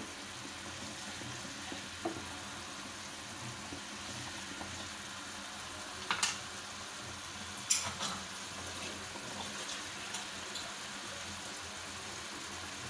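Spice-paste masala with slit green chillies bubbling and sizzling in oil in a frying pan, a steady hiss as it cooks down. A few sharp clicks stand out, the clearest about six and eight seconds in.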